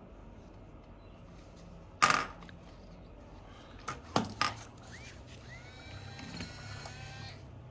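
Small metal tools and phone parts clicking and clinking during a smartphone teardown: one sharp clack about two seconds in and three quicker clicks near the middle, then faint scraping with thin squeaks.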